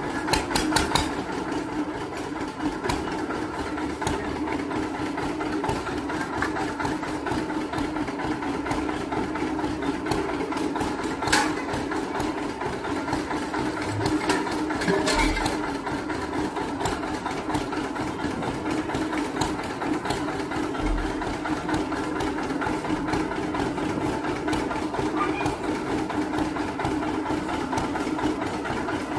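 Motor-driven sugarcane juicer running steadily, its motor and rollers giving a constant drone, with a few sharp clicks and knocks near the start and twice around the middle.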